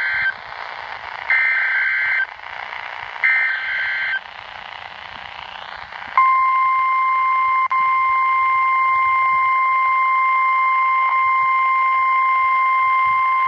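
NOAA Weather Radio Emergency Alert System signal for a tornado warning. It opens with the end of one SAME digital header burst and then two more warbling data bursts, each about a second long, with radio hiss between. About six seconds in the steady 1050 Hz warning alarm tone starts and holds.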